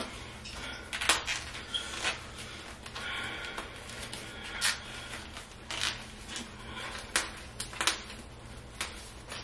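Hair and flexible curl rods being handled as the rods are unrolled and pulled out of curled hair: soft rustling with a dozen or so short, sharp clicks and taps scattered irregularly, over a faint steady hum.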